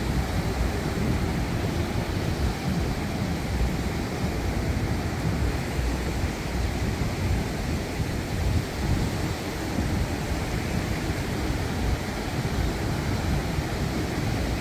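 Surf breaking steadily on a beach in a rough sea, with wind rumbling on the microphone.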